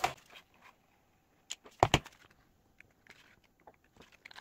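Stiff folded paper being handled and pressed into a cube shape, with a click and then two sharp knocks close together about two seconds in, and faint rustles and ticks after.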